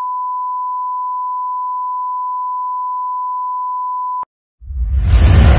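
Steady 1 kHz reference tone accompanying colour bars, cutting off with a click about four seconds in. After a brief silence, loud music with a heavy bass boom starts near the end.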